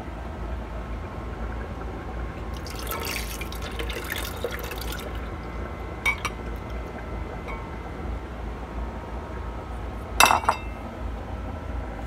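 Milk being poured from a ceramic bowl into a KitchenAid blender's glass jar, a liquid rush lasting about two seconds. A sharp clink of dishware, the loudest sound, comes about ten seconds in.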